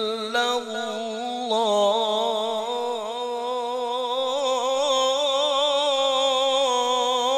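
A man's voice reciting Quranic verses in the melodic tilawah style into a microphone. After a few short phrases, about a second and a half in, he holds one long ornamented note with a fast wavering trill.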